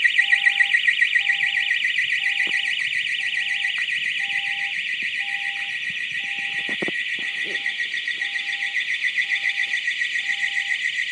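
Storage building's security alarm ringing continuously, very, very loud: a high-pitched, fast-pulsing ring, with a fainter, lower beep repeating about once a second beneath it. It is going off unanswered, and whether there is a break-in is not known.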